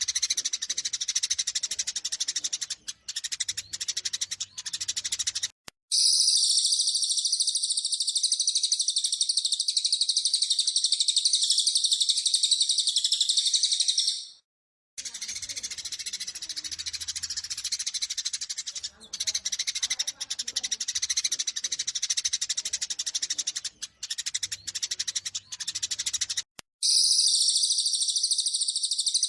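Eurasian tree sparrows chattering in a fast, dense stream of sharp chirps, the agitated calls of sparrows fighting. It comes as spliced recordings that cut abruptly about 6, 15 and 27 seconds in, and the stretches from about 6 to 14 seconds and from 27 seconds on are louder and higher-pitched.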